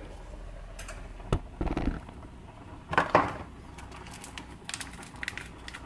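Handling noises on a hard kitchen countertop: a sharp knock about a second in, a short scrape, a louder clatter about three seconds in, then light scattered clicks, as the camera is handled and set down on the counter.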